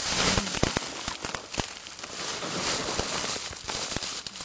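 Irregular rustling and crackling in dry leaf litter, with scattered sharp clicks.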